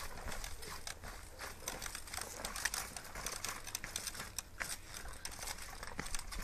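Trials motorcycle with the engine off, bounced and hopped on gravel: tyres crunching and scuffing on loose stones, with many irregular small clicks and crackles.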